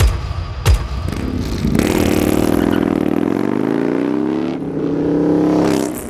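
Two deep impact hits in the first second, then a motorcycle engine revving from about two seconds in. Its pitch sinks and climbs, then holds steady near the end.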